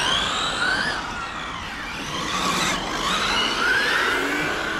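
Brushless electric motors of radio-controlled cars whining as they run on the track, several overlapping whines rising and falling in pitch as the cars accelerate and slow.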